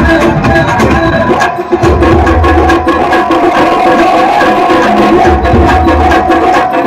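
Loud, percussion-heavy dance music with a steady beat, played over a loudspeaker, with no singing in this stretch. The sound briefly drops about a second and a half in.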